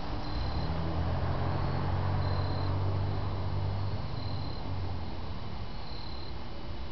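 Low droning hum from a Nissan 300ZX that is making a weird noise, which its owner suspects is in the transmission. The hum swells about half a second in and fades out around five seconds in, over a steady running noise, with faint short high chirps repeating about once a second.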